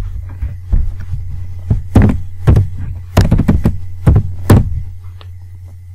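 Computer keyboard being typed on: about ten separate key presses at an uneven pace, each with a dull thump, stopping about a second and a half before the end. A steady low electrical hum runs underneath.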